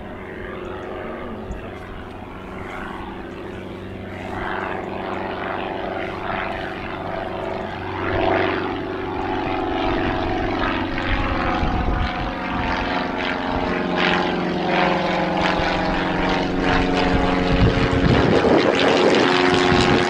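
Single-engine propeller light aircraft flying overhead, its piston engine and propeller droning steadily and growing louder as it approaches. The note shifts as it passes close near the end.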